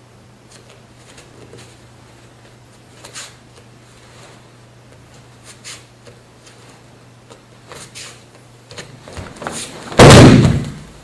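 A judoka thrown with tai otoshi hits the tatami mat about ten seconds in, a single loud slap and thud of the breakfall. Before it there is only faint rustling of gi cloth and bare feet as the two take grips, over a steady low room hum.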